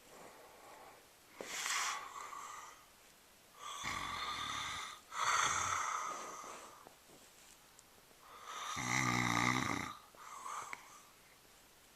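Snoring: four or five noisy breaths a few seconds apart, the loudest about nine seconds in carrying a low buzz.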